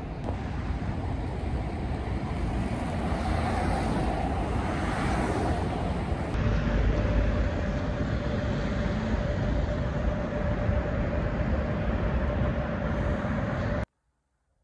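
Wind rumbling on a phone's microphone outdoors, over a steady background of street noise. It cuts off suddenly to near silence near the end.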